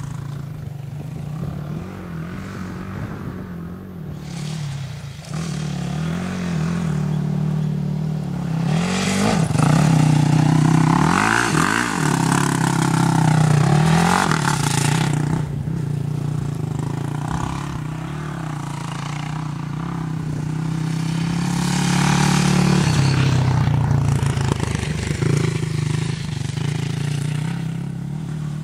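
Quad bike (ATV) engine running under throttle as it is ridden around a dirt track and over jumps, its pitch rising and falling repeatedly. It is loudest about a third of the way in and again a little after two thirds of the way in.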